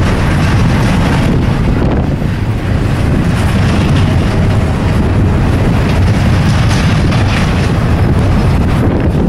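Strong wind buffeting the microphone with a loud steady low rumble, over the sound of a passing freight train.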